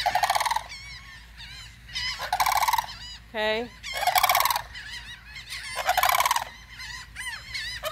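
A sandhill crane calling: loud, rolling, rattling calls of under a second each, repeated about every two seconds, with fainter wavering cries of gulls in between.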